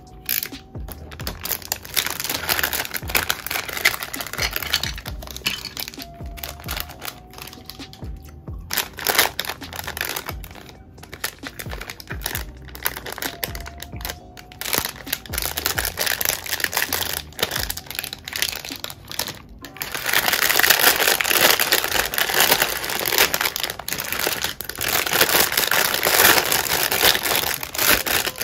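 Plastic crinkling and rustling as building-block kit parts are handled, over lo-fi hip-hop background music. The crinkling gets louder and denser about twenty seconds in.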